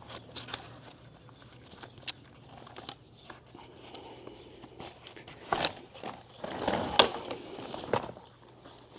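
Tusk collapsible camp chair being assembled: the fabric seat rustling and the frame poles clicking as the seat's corner pockets are pulled over the frame tips. A sharp click about two seconds in, and louder knocks and rustling in the second half.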